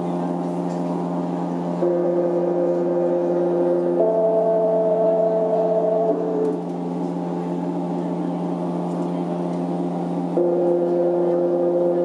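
Slow ambient song intro from a live band: a steady low drone with sustained keyboard chords held over it. The chord changes about every two seconds, and the sequence starts over near ten seconds in.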